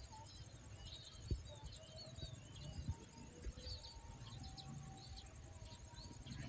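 Birds chirping and a steady high insect trill over a low outdoor rumble. There is a faint knock about a second in, and another near the middle.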